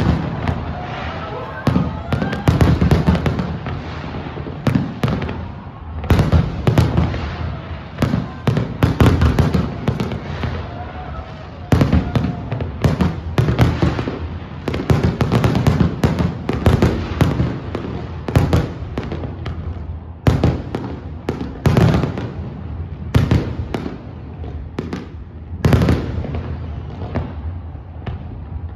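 Fireworks display: a dense, irregular run of bangs and crackling shell bursts, with heavy low booms.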